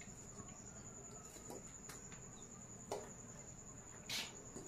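Rhesus macaque scrubbing inside a small steel bucket: a few light knocks, then a short rasping scrape near the end. A steady high-pitched whine runs underneath.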